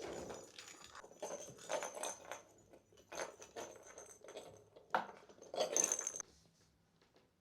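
Kittens playing with toys: scattered scrapes, taps and rustles of small paws and objects, with a faint jingling. It stops about six seconds in.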